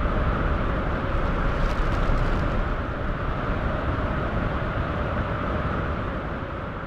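A steady rushing noise with a low rumble, slowly fading toward the end.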